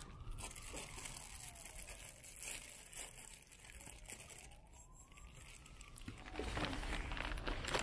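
A distant emergency-vehicle siren wailing: one tone slowly rising and falling, each sweep taking about two seconds.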